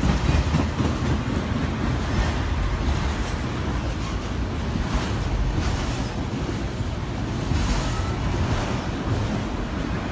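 Freight train of autorack cars rolling past at close range: a continuous rumble of steel wheels on the rails.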